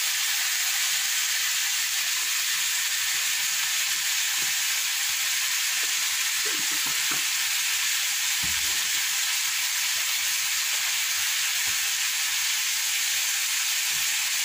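Chicken and potato pieces sizzling in hot oil in an iron kadai, a steady frying hiss, with a few faint knocks around the middle.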